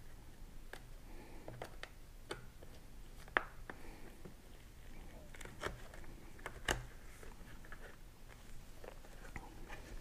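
Faint handling noise of a clear plastic helmet face shield and Pinlock insert lens being flexed by hands in rubber gloves: scattered light clicks and rubs, with two sharper clicks about a third and two-thirds of the way through.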